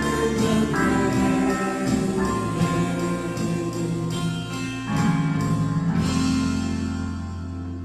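Contemporary worship band, with singers over keyboard and guitars, singing the last line of a song. About five seconds in they land on a final chord that is held and slowly fades.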